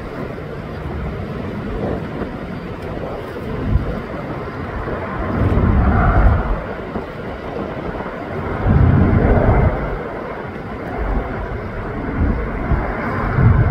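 Wind buffeting the microphone in gusts, with three strong deep surges, over the steady distant rumble of a twin-engine jet airliner's engines as it moves along the runway.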